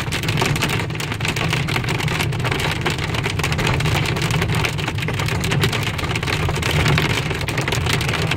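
Hail pelting a moving car, heard from inside the cabin: a dense, continuous clatter of hailstones on the car body over the steady low rumble of the car driving.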